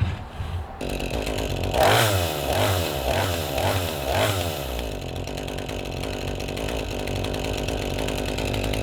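Two-stroke chainsaw engine running as it warms up after a cold start following a year without use. It steps up just under a second in, is blipped about five times in quick succession, then runs steadily at a higher speed.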